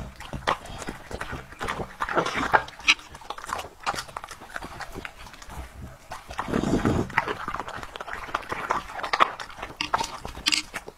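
A dog chewing broccoli: irregular wet crunches and smacks of its jaws and lips, louder for a moment around the middle.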